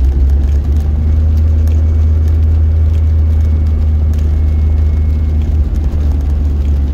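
Steady low rumble of a pickup truck's engine and tyres on a wet road, heard from inside the cab, with faint scattered ticks of rain on the windscreen.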